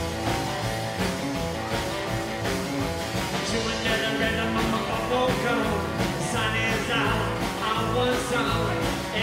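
Rockabilly band playing live, with electric guitar, acoustic guitar, upright double bass and drums keeping a steady beat. A male lead vocal comes in about four seconds in.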